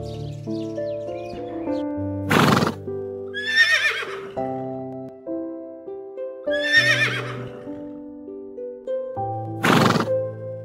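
Horse neighing twice, each a quavering whinny that falls in pitch, with two short loud noisy blasts, one before the first neigh and one near the end, over gentle background music.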